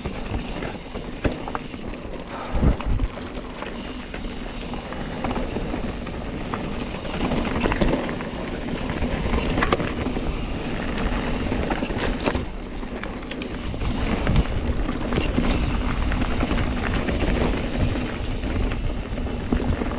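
Mountain bike being ridden along a dirt trail: tyres rolling over dirt and rocks, with scattered rattles and knocks from the bike and wind noise on the microphone.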